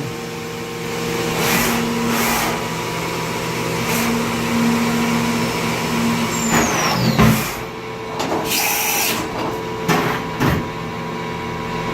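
Mori Seiki NH4000DCG horizontal machining center running: a steady mechanical hum broken by several sharp clunks, a falling whine a little past halfway and a short hiss of air later on.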